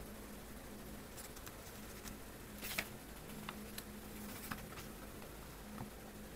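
A paper page of a small book being turned by hand: a short crisp rustle about halfway through, then a few light ticks of fingers on paper as the new spread is held open.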